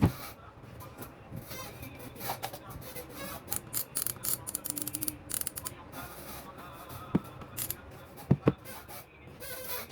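Handling noise: a few sharp clicks and knocks with brief rustling, two knocks close together near the end, over a low steady hum.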